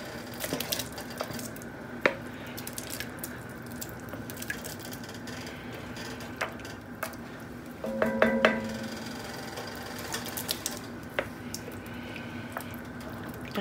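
Wooden spoon stirring and scraping chopped chicken into a thick cream stew in an enamelled cast-iron Dutch oven, with scattered clicks and knocks as the pieces are tipped in from a bowl. A brief ringing clink about eight seconds in.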